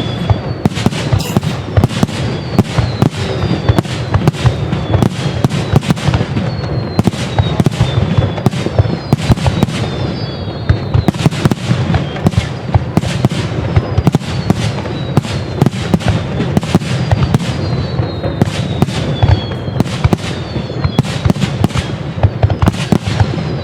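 Fireworks display in a dense barrage: a rapid, unbroken stream of shell bursts and crackle over a steady low rumble. Short falling whistles recur every second or two.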